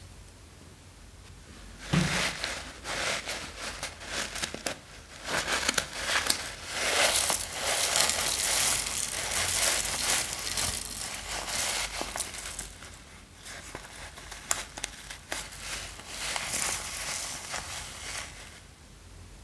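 Tiny foam beads and sprinkles spilling from a squeezed bag into a glass bowl. It is a dense crackle of many small ticks that starts about two seconds in and thins out near the end.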